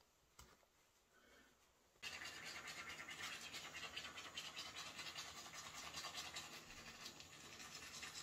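Faint near silence with a small click, then from about two seconds in a toothbrush scrubbing teeth: a steady, rapid, scratchy brushing.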